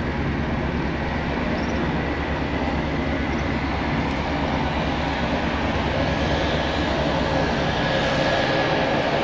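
Pilatus PC-12 NGX's single Pratt & Whitney PT6A turboprop engine and propeller running steadily as the aircraft taxis, a steady high tone over a low hum. It grows a little louder in the second half.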